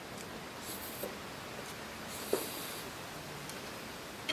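Eating shrimp noodles with chopsticks: two short hissy slurps, with small sharp clicks of chopsticks on the plate, the loudest about halfway through, over a steady background hiss.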